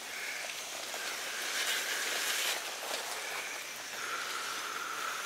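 Water spraying onto sugarcane mulch in a steady hiss that swells a little about two seconds in.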